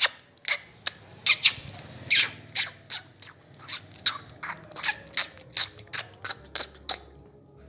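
A handler's short, sharp herding calls repeated irregularly, two or three a second, urging a bull to move.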